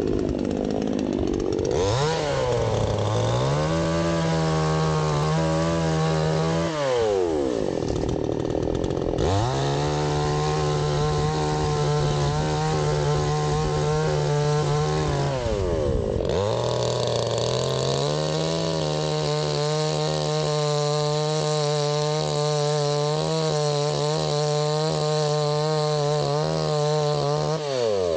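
Baumr-AG AG Pro SX52 two-stroke chainsaw held at high revs in three long runs, the engine note falling away between them as the throttle is let off. Early in the first run the revs sag and pick back up.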